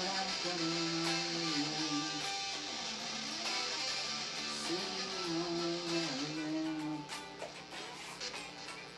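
Guitar music: strummed chords under a lead line of held notes that slide up in pitch at the start and again about five seconds in.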